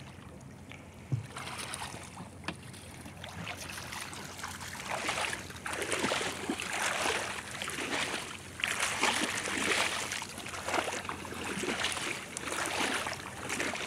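Water sloshing and splashing around the legs of someone wading through shallow pond water while dragging a fishing net. It is faint at first, then comes in uneven surges every second or so with each stride.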